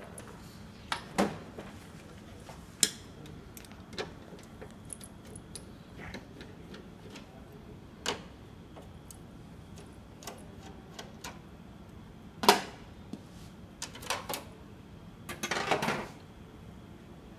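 Scattered clicks and knocks of hands and a screwdriver handling metal and plastic parts in a copier's open scanner section. There is a sharper knock about twelve seconds in and a short cluster of handling noise near the end.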